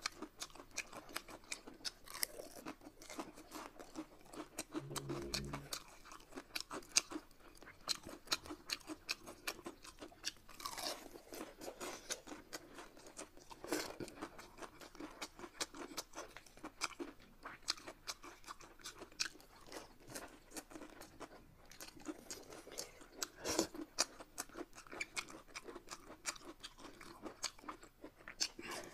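Close-miked eating: chewing and crunching with many quick irregular clicks of mouths and food.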